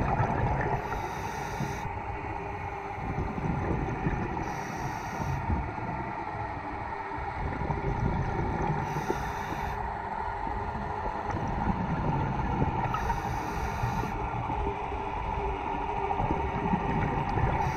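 Underwater rumble heard through a dive camera's housing, with a scuba regulator hissing for about a second every four seconds or so as the diver breathes.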